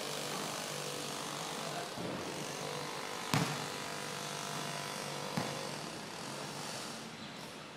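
A steady engine drone from a vehicle off the court, fading in the last couple of seconds. A basketball hits hard about three seconds in, the loudest sound, and makes a lighter impact about two seconds later.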